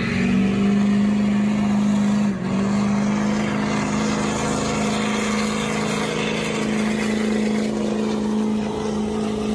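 Engine of a pulling vehicle at a truck and tractor pull, running at high, steady revs during a pull, with a brief dip in the note about two and a half seconds in.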